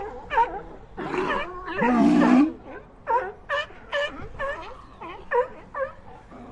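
Animal calls: a quick series of short, high calls, about two or three a second, with one louder, deeper call about two seconds in.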